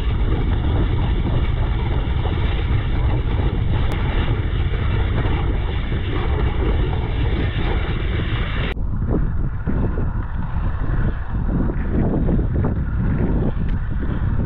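Strong wind buffeting the microphone in a storm: a loud, dense rumble with hiss above it. About nine seconds in, the upper hiss cuts off abruptly and the rumble turns gustier.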